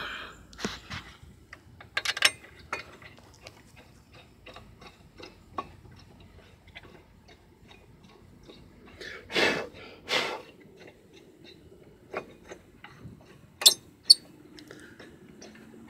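Small metallic clicks and clinks of brake caliper bracket bolts being picked up and fitted by hand, with two short rustling noises in the middle and two sharp louder clicks near the end.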